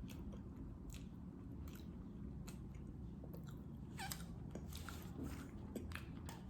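Faint close-up chewing of a mouthful of soft box cake with taro paste, pork floss and a cheese layer, with scattered mouth clicks at irregular intervals.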